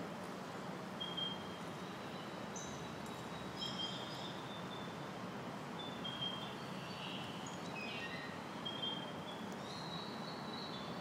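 Birds giving scattered short, high chirps, irregularly spaced, with a couple of falling notes near the end, over a steady background hum and hiss.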